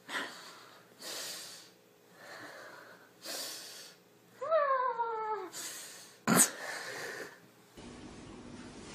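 A domestic cat hissing in short bursts about once a second while being held, with one loud yowl falling in pitch in the middle and a sudden sharp spit about a second later.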